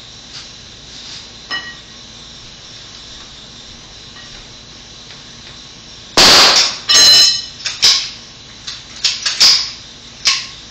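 Hammer blows at the bottom plate of a wood stud wall: about eight sharp strikes starting a little past halfway, the first two the loudest and ringing metallically, the rest coming in quicker, lighter pairs.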